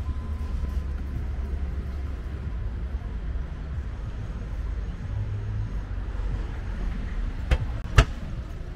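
Low, steady outdoor rumble picked up by a handheld walking camera's microphone, with two sharp clicks about half a second apart near the end.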